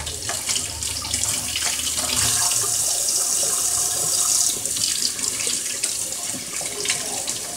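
Kitchen faucet running into a stainless steel sink while an avocado seed is rubbed clean by hand under the stream. The splashing gets brighter and louder for a couple of seconds around the middle.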